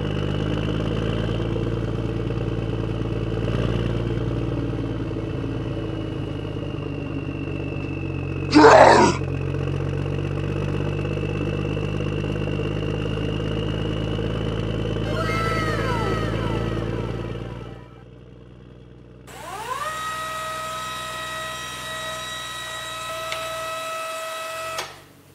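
Tractor engine running steadily at a low, even pitch, cutting out about 18 seconds in. There is a brief loud burst about 8 seconds in. After the engine stops, a tone glides up and holds steady with several overtones until near the end.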